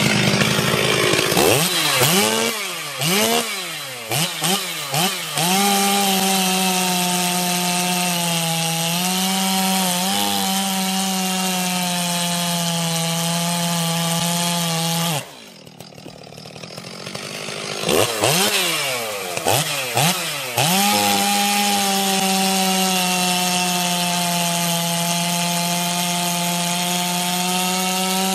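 Ported 70cc-class two-stroke chainsaw, revved up and down several times, then held at full throttle through a cut of about ten seconds, with small dips in pitch as it works. It eases off for about three seconds, is blipped again, and goes back to full throttle for another long cut.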